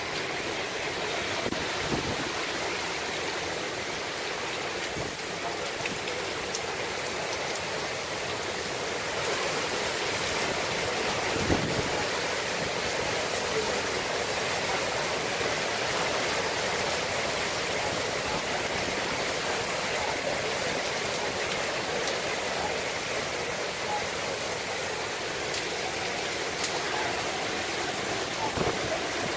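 Hurricane wind and driving rain making a steady rushing hiss that swells slightly in the gusts. One short knock comes about eleven seconds in.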